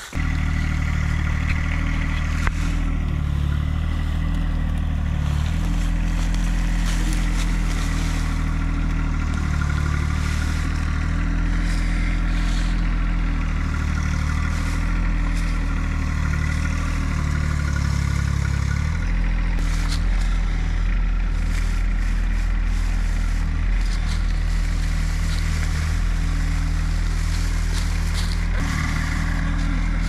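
Engine of a green John Deere Gator–type utility vehicle running steadily under load as it drags a log uphill on a tow strap. The engine note shifts about two-thirds of the way through and again near the end.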